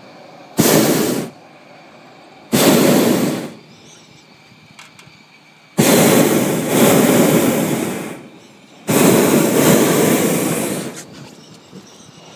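Hot air balloon's propane burner firing in four blasts, each starting abruptly: two short ones of about a second, then two longer ones of two to three seconds each, with a faint steady hiss in the gaps. The burner is firing to heat the envelope during the climb after lift-off.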